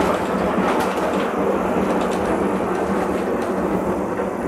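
Stuttgart funicular car running along its rails, heard from inside the cabin: a steady rumble with a few faint clicks.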